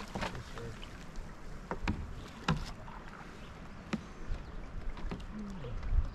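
Paddling a small boat on a river: paddle strokes and moving water, with three sharp knocks spread through the stretch.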